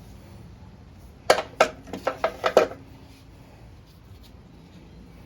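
Metal objects clinking together: about six sharp clinks in quick succession, starting about a second in and over within a second and a half.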